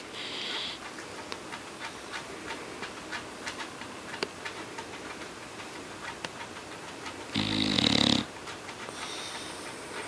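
English bulldog snoring in its sleep: one loud snore about seven seconds in, lasting under a second, with softer breathing noises at the start and near the end.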